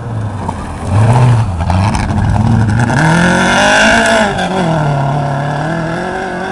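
Rally car engine revving hard on a forest stage, its pitch climbing and dropping through the gears: a first rise about a second in, a higher peak in the middle, then falling away and fading.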